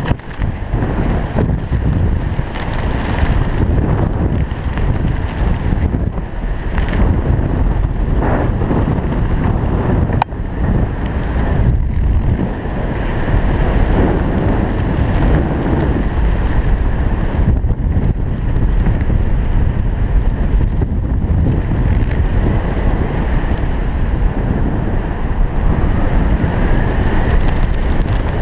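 Freefall airflow rushing over a skydiver's helmet camera: loud, steady wind noise on the microphone.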